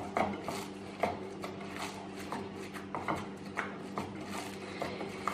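A hand kneading ground kefta meat in a ceramic bowl: faint squishing with scattered light knocks against the bowl, about one a second.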